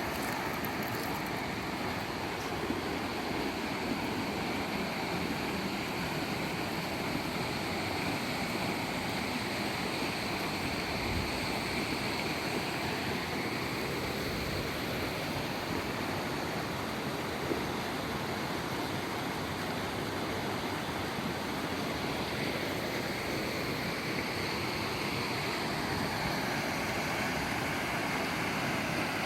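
Steady rushing of a waterfall, an even hiss of falling water with no engine in it.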